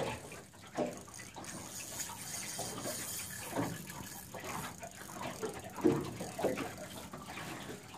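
Water lapping and splashing against a boat hull, an irregular watery wash.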